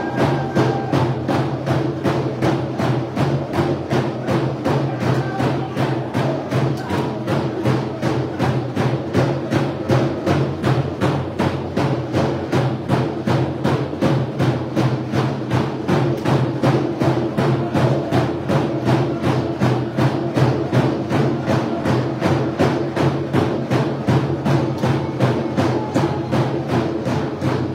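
Dene hand game drumming: a row of hide frame drums struck with sticks in a fast, steady, unbroken beat, with the drummers singing over it.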